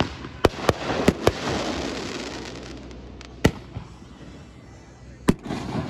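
Aerial fireworks going off: a quick run of sharp bangs in the first second and a half, a fading crackle after them, then two single bangs a couple of seconds apart.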